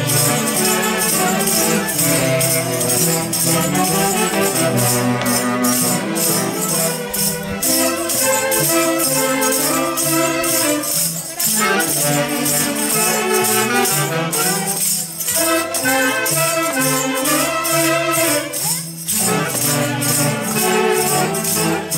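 Peruvian folk orchestra playing a festive dance tune: a pitched melody over a quick, steady percussion beat, with brief breaks between phrases.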